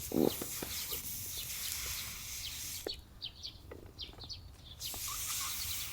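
Air blown onto a smouldering fallen-leaf bonfire to make it glow, heard as a long hiss, a pause, then another hiss near the end. Short bird chirps sound in the pause.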